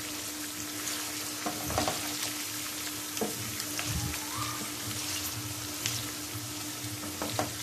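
Chicken pieces with onions and tomatoes sizzling in oily masala in a nonstick frying pan while a wooden spatula stirs them, knocking against the pan a few times. A steady low hum runs underneath.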